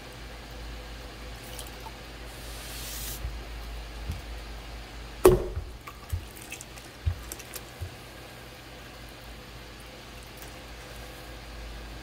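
Potter's wheel running with a steady low hum while wet clay and water are worked by hand. A sudden loud knock comes about five seconds in, followed by a few softer thumps.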